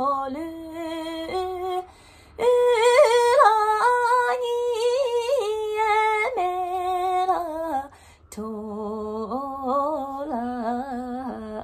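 A woman singing a Tibetan song in a single unaccompanied voice, holding long wavering notes and gliding between them, with short breaks for breath about two seconds in and again near eight seconds.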